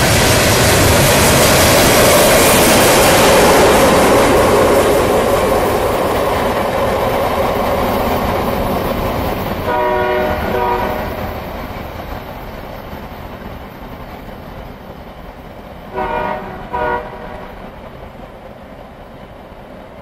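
Freight train of boxcars rolling past, a loud rumble of wheels and cars that fades away over the first several seconds. About ten seconds in, a train horn sounds two short blasts, and two more about six seconds later.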